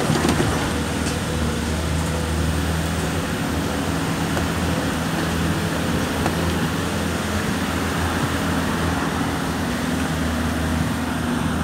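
A low, steady engine hum that holds an even pitch throughout.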